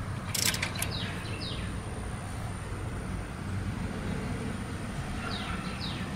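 Click-type torque wrench tightening a rocker-shaft bolt on a VW Type 3 cylinder head: a short burst of sharp clicks about half a second in, then one more click, as it reaches the 18 ft-lb setting. A steady low rumble runs underneath, and a few short high chirps come and go.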